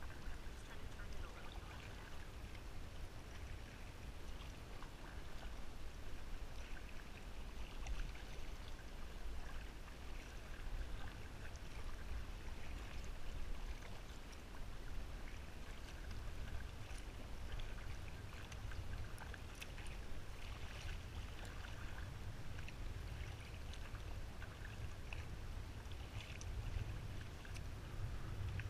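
Kayak paddle dipping and splashing in the water, with small waves lapping at the hull, over a steady low rumble.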